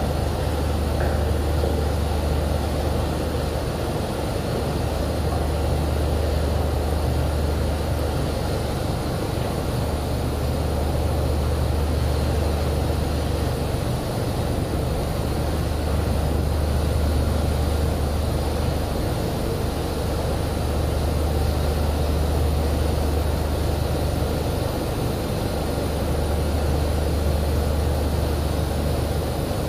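Drilling rig's engines running with a steady low drone that swells and eases every few seconds.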